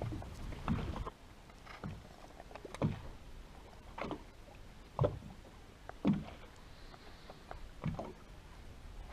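Small waves slapping against the hull of a drifting motorboat, in short knocks about once a second.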